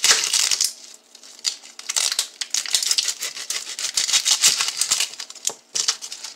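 A knife slicing through a whole onion, with irregular crackles from the dry papery skin and clicks of the blade on the cutting board.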